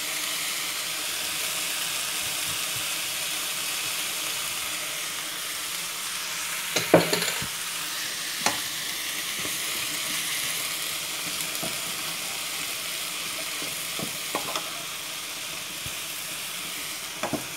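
Mixed vegetables sizzling in hot oil in a frying pan while a wooden spatula stirs them, with a few sharp knocks of the spatula against the pan, the loudest about seven seconds in.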